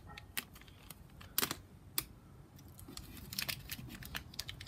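Scattered light clicks and taps from small objects being handled, with two louder clicks about a second and a half and two seconds in and a quick run of them near the end.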